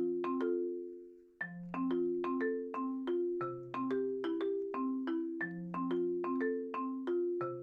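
Background music: a light, bouncy melody of short struck notes in a marimba-like mallet-percussion sound, pausing briefly about a second in before carrying on at an even pace.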